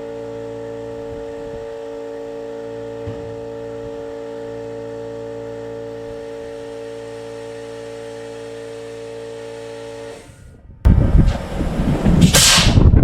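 A steady machine hum made of several held tones, which cuts off about ten seconds in. About a second later loud, rough noise starts, with a sharp hiss near the end.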